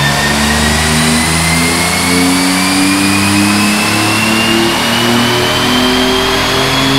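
Built twin-turbo 6G72 V6 of a Mitsubishi 3000GT VR4 with straight-pipe exhaust, pulling hard on a chassis dyno with its revs climbing. A high whine rises steadily in pitch alongside it.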